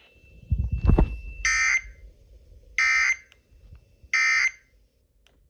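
Three identical short buzzing data bursts about 1.4 seconds apart: the Emergency Alert System end-of-message code, marking the close of the warning broadcast. A low rumbling thud comes just before the first burst, about half a second in.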